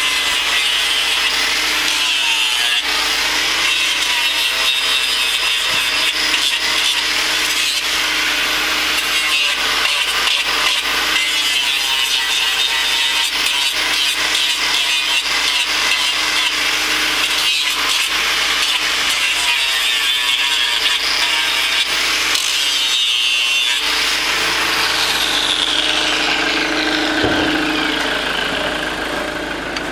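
Angle grinder with a hoof-trimming disc grinding away cow hoof horn, a steady harsh rasping. About 24 s in the grinding stops and the motor's whine falls steadily in pitch as the disc spins down.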